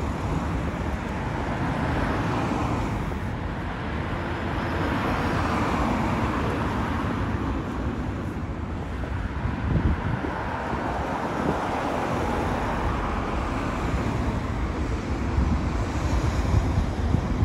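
Road traffic: cars driving past, a steady rush of engines and tyres that swells and fades as vehicles go by.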